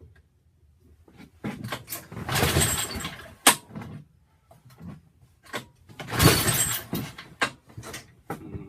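Two pulls on the Toro 3521 snowblower's recoil starter, each a second or two of rope rasp and engine cranking, with clicks and knocks between. The engine does not catch, a hard start after a new head gasket.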